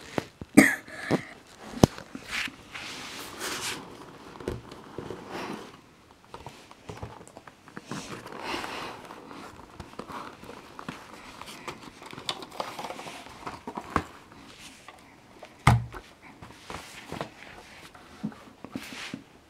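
Hands handling a die-cast model bus and its cardboard box and insert: scattered rustles, scrapes and light clicks, with one sharp knock about sixteen seconds in.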